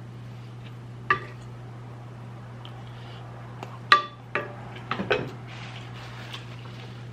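A few short clinks of an eating utensil against a dish, the loudest about four seconds in, over a steady low hum.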